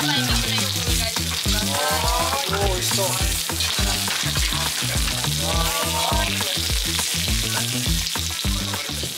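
Lamb and vegetables sizzling on a domed jingisukan grill pan. Background music with a steady beat and bass line runs under it, and a short melodic phrase comes in twice.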